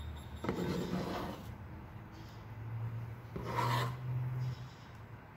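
A metal spoon scraping against a frying pan in two main rasping strokes, about half a second in and again past the middle, pushing runny beaten egg in from the sides of the pan.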